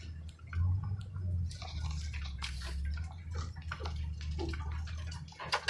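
Ford F-250 pickup's engine running steadily, heard from inside the cab, while brush and saplings scrape and swish along the body and twigs snap against it in irregular cracks, with a louder crack near the end.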